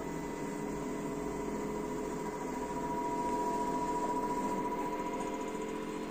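LG F4DV509S0E washer-dryer spinning its empty drum at high speed: a quiet, steady hum and whine that swells slightly midway, with no knocking. The machine is level.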